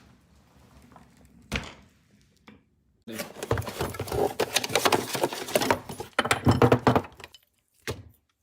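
An office chair and its casters being handled: a single knock, then about four seconds of dense plastic clattering and knocking, then one more knock near the end.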